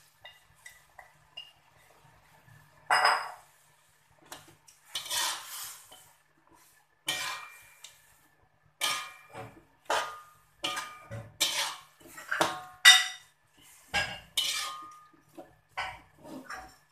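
Metal slotted spatula scraping and clanking against an aluminium wok while stirring cassava leaves through thick coconut-milk spice paste. The strokes start about three seconds in, then come roughly once a second, some with a brief metallic ring.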